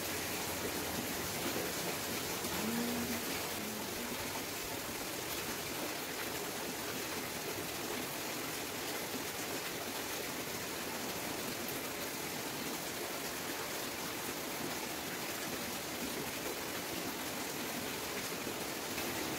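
Steady rain falling: an even hiss that holds level without breaks.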